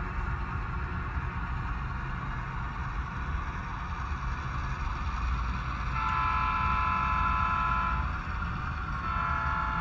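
Low, steady diesel rumble of a freight train, with a locomotive air horn sounding a multi-note chord twice: a long blast about six seconds in, then another starting a second later near the end.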